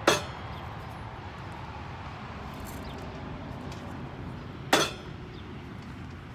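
Two sharp metal clinks about four and a half seconds apart, each ringing briefly, from a small single-serve camping pot and its measuring cup knocking together as they are handled. A steady low rumble sits underneath.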